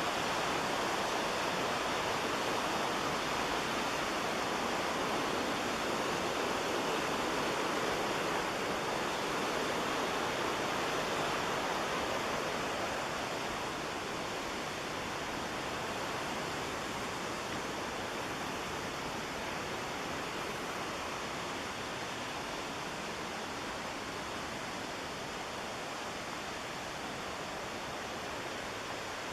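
Whitewater of the McKenzie River rushing steadily, a continuous noise that eases slightly about halfway through.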